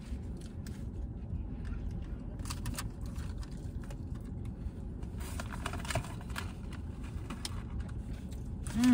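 Steady low rumble inside a car cabin, with light clicks and rustles of food wrappers and packaging as people eat.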